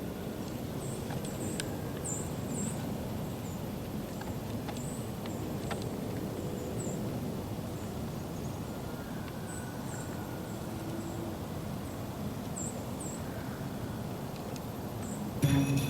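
Woodland ambience: a steady low outdoor rumble with small birds giving short, thin, high chirps again and again, and a few faint clicks. Music with jingle bells starts right at the end.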